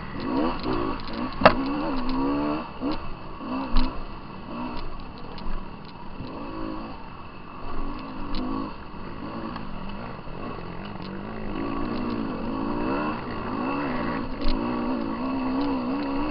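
Dirt bike engine revving up and down as the throttle opens and closes on a rough woodland trail, with occasional sharp knocks, the loudest about a second and a half in and near four seconds.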